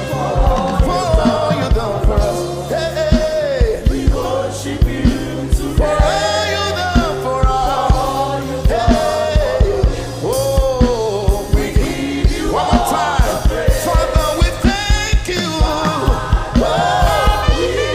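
Gospel praise song: singing over a band with a steady drum beat and bass.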